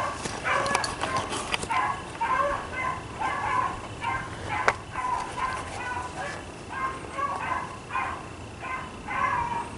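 A pack of beagles baying on a chase: short, repeated calls, several dogs overlapping at about two calls a second. There is a single sharp click about halfway through.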